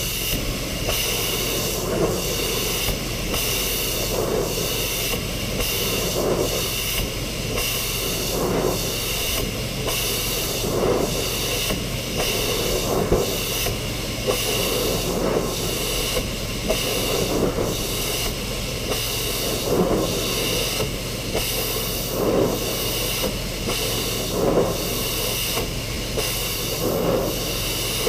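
Pressure washer jet spraying a wooden fence: a steady hiss of high-pressure water over a low hum, swelling and easing every second or two as the wand sweeps across the boards.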